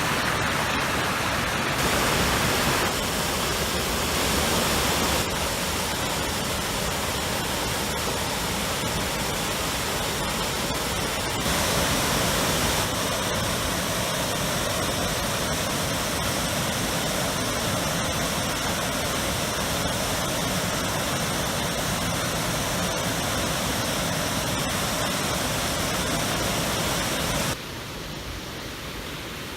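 Steady rush of a waterfall, a dense noise of falling water, jumping abruptly in loudness a few times and dropping noticeably quieter near the end.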